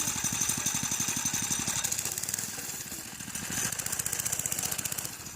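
Small petrol engine of a ride-on vehicle running with rapid, even firing pulses. It eases off about two seconds in and picks up again a second or so later.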